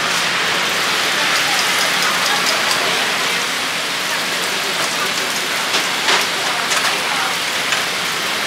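Takoyaki sizzling in a takoyaki griddle: a steady hiss with scattered small pops and ticks.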